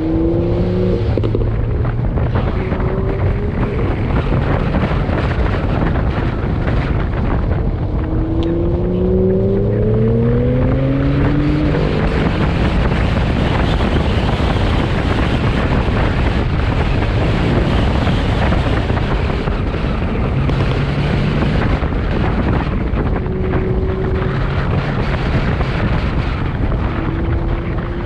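Chevrolet C8 Corvette's V8 engine under way, with heavy wind rush over the microphone; the engine pitch rises as it accelerates about eight to eleven seconds in.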